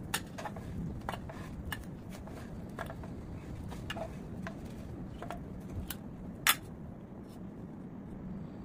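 Wooden spatula knocking and scraping against a nonstick frying pan and a stainless steel plate as omelette pieces are lifted and served: irregular light clicks, with one sharper clink about six and a half seconds in, over a low steady hum.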